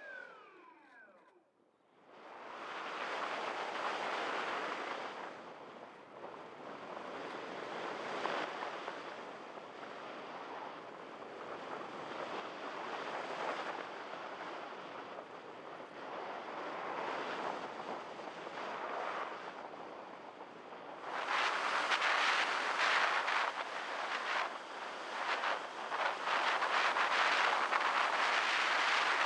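Electric motor whine of a Multiplex EasyStar RC plane falling in pitch and dying away in the first second or so, as heard by its onboard camera. Then a steady rush of air over the gliding plane, which grows louder about 21 seconds in.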